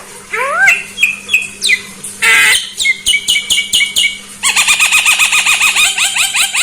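Javan myna (jalak kebo) calling in a varied run of short rising whistles and chirps with one harsh buzzy note. About two-thirds of the way through it breaks into a fast string of repeated chirps, about five or six a second.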